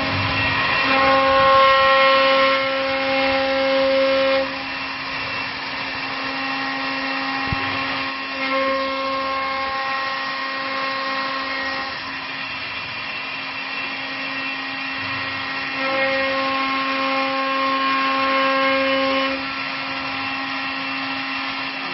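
Multi-spindle CNC wood lathe running, turning several wooden blanks at once as its cutters shape them. There is a steady low motor hum, with higher whining tones that come and go in a repeating cycle of about seven to eight seconds.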